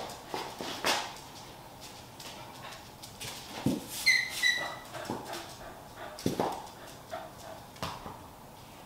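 Small dog whimpering twice in short, high-pitched notes about four seconds in, with scattered taps and footsteps on a concrete floor.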